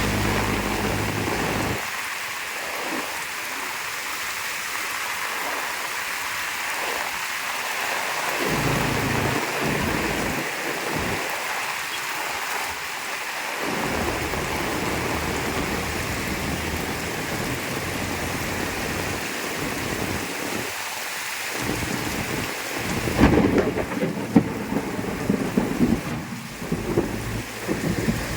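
Heavy rain falling steadily, with thunder rumbling low at intervals. Starting a little past twenty seconds in, a louder, uneven stretch of cracks and rumbles.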